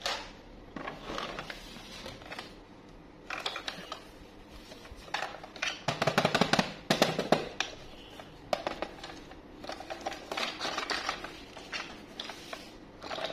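Hard plastic toy bus handled with gloved hands: irregular clicks, taps and rattles of plastic, busiest about six to seven seconds in.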